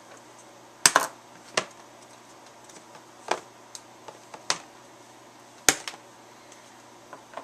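Sharp clicks and knocks from a blue binder and its parts being handled and snapped into place at a table, about half a dozen, the loudest about a second in and near six seconds.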